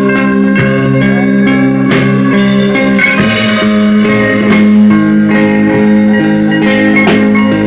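Live rock band playing: guitar over a steady drum beat.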